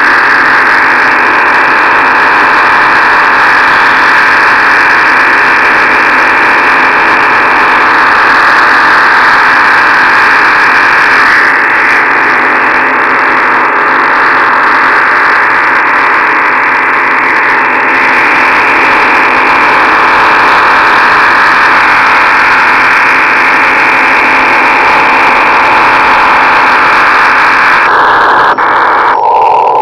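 Shortwave receiver in sideband mode giving out a loud, steady rushing noise that fills its audio passband. It comes from a very strong unidentified signal on 9.803 MHz, which the uploader suspects might be a HAARP transmission. Near the end the noise suddenly narrows and turns lower.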